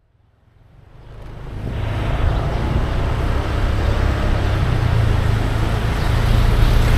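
Road traffic noise with a low engine rumble, fading in over the first two seconds and then holding steady.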